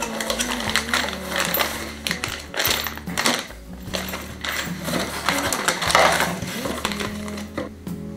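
Background music over handling sounds: a cardboard parts box being opened and a plastic bag of exhaust gasket and bolts picked up, with small metallic clinks and rustling.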